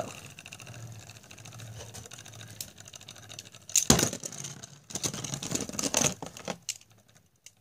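Beyblade spinning top whirring and rattling against the plastic floor of its stadium. About four seconds in, and again a second or two later, it clacks loudly against something, then it dies away to near silence near the end.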